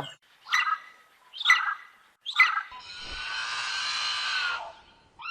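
Designed dinosaur (Linheraptor) calls layered from bird, goose, snake and crane recordings: three short, shrill bird-like chirps about a second apart, then a longer, harsh rasping call of about two seconds.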